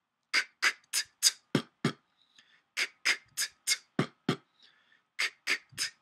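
Beatboxing done with the mouth alone: crisp K and T snares and B kick drums in the order K, K, T, T, B, B, about three strokes a second. The B kicks at the end of each run are deeper. The run of six comes twice with a short pause between, and a third run starts near the end.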